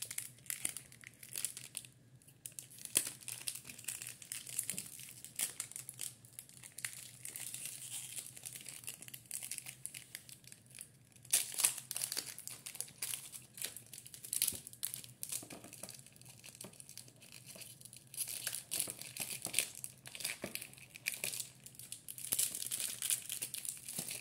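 Foil wrapper of a Pokémon trading-card booster pack crinkling and tearing as it is opened by hand. Irregular crackles throughout, busiest about eleven seconds in and again over the last several seconds.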